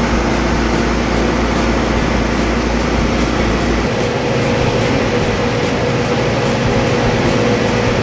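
Putzmeister trailer concrete pump and ready-mix truck running as concrete is pumped through the hose: a loud, steady machine drone with a faint, quick, regular ticking. The pitch of the hum shifts about four seconds in.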